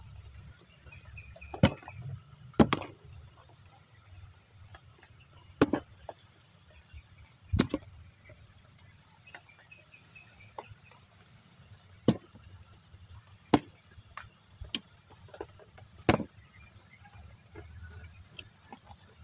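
Fish and prawns dropped one by one into a plastic tub as a catch is sorted by hand, each landing with a sharp knock, about seven in all. Insects chirp in short pulsed trills throughout, over a steady high whine.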